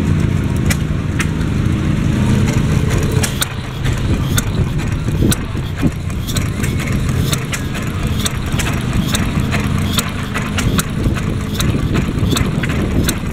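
Replica of Henry Ford's kitchen sink engine, a small single-cylinder gasoline engine, running with sharp firing pops at uneven intervals, roughly one to two a second. The uneven firing is put down to wind disturbing its drip-fed fuel.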